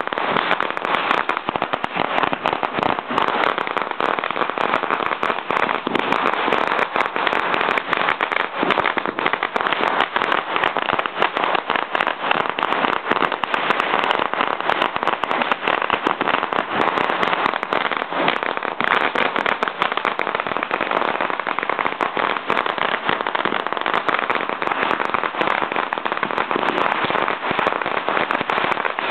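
Firecrackers going off in a dense, unbroken crackle of many small pops each second, holding steady with no pause.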